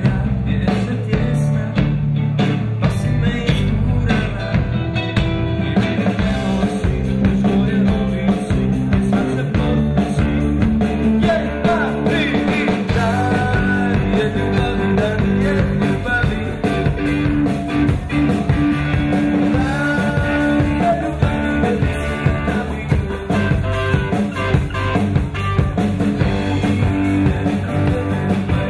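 Live rock band playing: electric bass, drum kit, electric guitar and keyboard.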